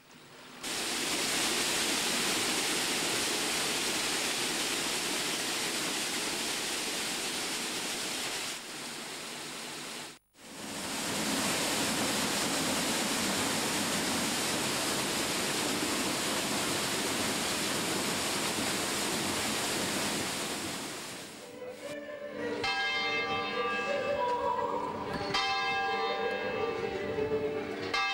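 Steady rushing of water, like a waterfall or torrent, for about twenty seconds, broken by a brief drop and cut about ten seconds in. Church bells start ringing about 22 seconds in.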